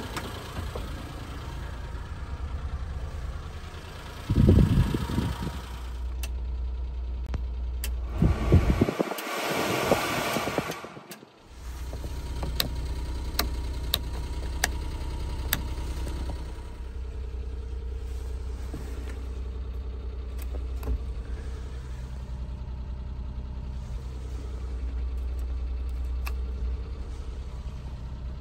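Daihatsu Hijet kei truck's three-cylinder engine idling steadily. There is a thump about four seconds in, a loud rush around nine to eleven seconds, and a run of sharp clicks from the dashboard switches being pressed.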